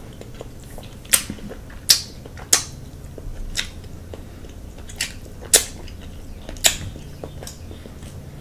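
A person eating king crab legs close to the microphone: about six sharp clicks and snaps spread unevenly over the stretch, against a low quiet background.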